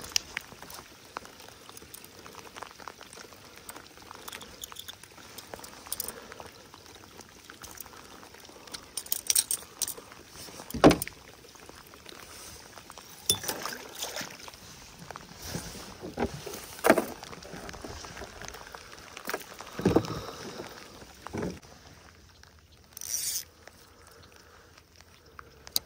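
Steady rain pattering on the water and a kayak, with scattered short knocks and rustles from fishing gear and a rain jacket being handled. The loudest knock comes about eleven seconds in.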